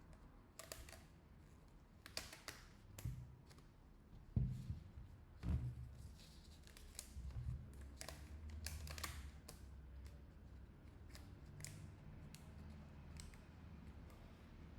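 Faint snips and clicks of scissors and tape being worked by hand on a phone under repair, with a few soft knocks of handling.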